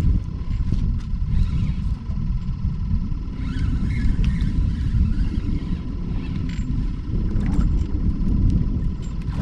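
Wind buffeting the microphone: a loud, low rumble that rises and falls unevenly, over a faint steady high tone.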